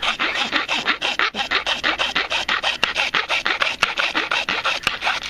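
Round chainsaw file rasping back and forth across PVC pipe in quick strokes, several a second, cutting a string notch into the tip of a PVC bow.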